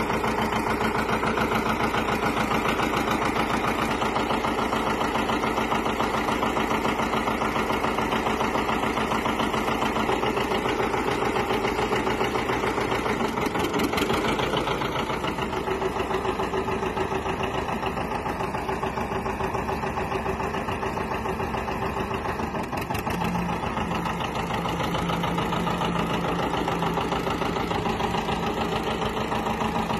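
1957 John Deere 720 Diesel's two-cylinder diesel engine running with a steady, even pulsing beat as the tractor is driven.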